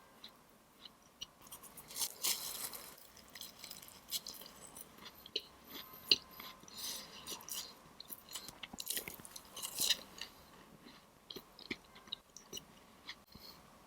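Close-miked chewing of a crunchy dessert, with crackly crunches in three bouts and small sharp clicks between them.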